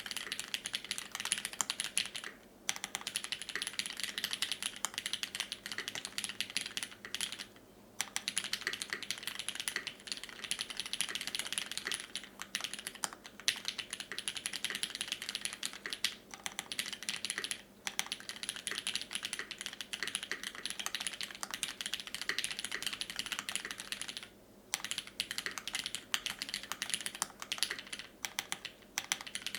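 Continuous fast typing on a custom AL.BOK mechanical keyboard with lubed, filmed retooled Cherry MX Black linear switches in a top-mounted brass plate, under GMK keycaps. The keystrokes run in a dense stream, broken by three brief pauses.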